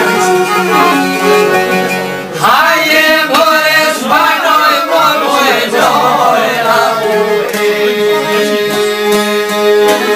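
Albanian folk ensemble of long-necked plucked lutes (çifteli and sharki) with a bowed violin playing. A man's voice comes in singing a wavering, ornamented line about two seconds in, over the instruments.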